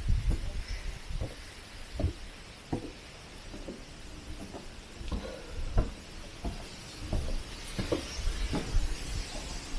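Footsteps on a wooden deck and steps, a regular thud about three times every two seconds, over a steady low rumble.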